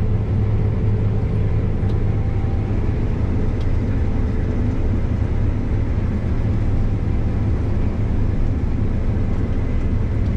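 Combine harvester running steadily under load, a constant low mechanical drone with a steady hum through it, heard from inside the cab.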